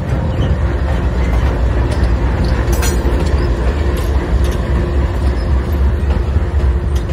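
GE C40-9W diesel-electric locomotive passing close by, its 16-cylinder diesel engine running with a deep, steady rumble and its wheels rolling on the rails.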